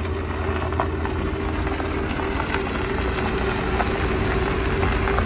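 A motor running steadily: a constant hum over a low rumble, growing slightly louder.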